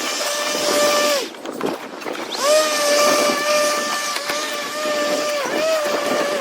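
Electric motor of a Greenworks 40V cordless yard tool whirring with an airy rush. It is switched on and off: it winds down about a second in, spins up again after a short pause, and winds down once more near the end.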